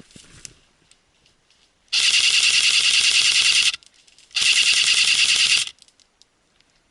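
Airsoft gun firing two long full-auto bursts, a rapid rattle of shots with a short pause between them, about two seconds in and again about four and a half seconds in.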